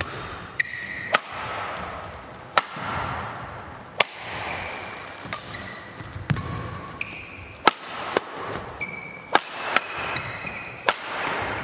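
Badminton doubles rally: rackets strike the shuttlecock with sharp cracks about once a second, a quick exchange that gets faster near the end. Short high squeaks of shoes on the court come between the hits.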